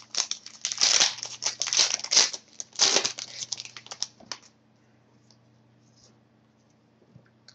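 Trading-card pack wrapper crinkling and tearing as a pack of hockey cards is opened and the cards are handled, in a run of rustling bursts that stops about halfway through.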